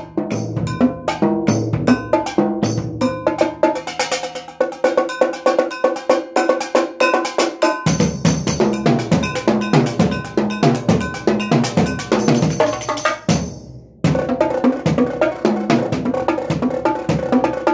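Multi-percussion setup of drums and metal percussion played with drumsticks in a fast, unbroken run of strikes. Ringing metallic clanks sound among the drum hits. There is a brief break about three-quarters of the way through, then the playing picks up again.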